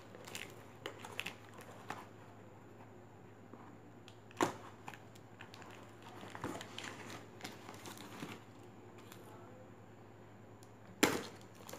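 Cardboard shipping box being opened by hand: faint rustling and crinkling of the flaps and packing tape, with small scrapes as a Swiss Army knife blade cuts along the tape. A louder snap about four seconds in, and a stronger one near the end.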